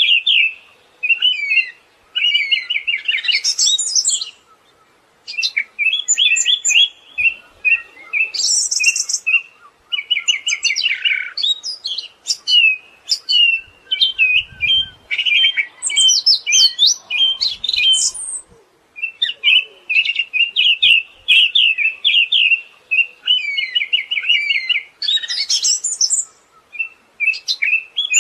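Siberian thrush singing: long runs of rapid chattering trills with higher whistled notes mixed in, in phrases broken by short pauses.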